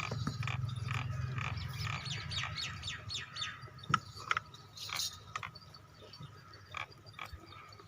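Small birds chirping in quick, short calls over a low hum that fades out about three and a half seconds in. A sharp click comes about four seconds in.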